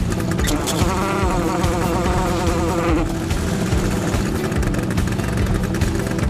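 Engine of a heavy machine running with a steady buzzing drone. A warbling tone rises over it about a second in and stops about two seconds later.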